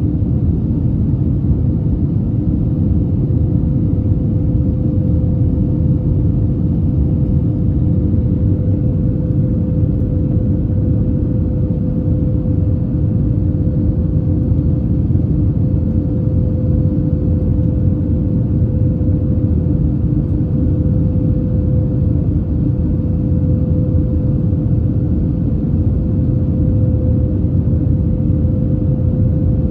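Airbus A321 cabin noise in flight: a steady low engine and airflow rumble with an even, unchanging hum tone over it.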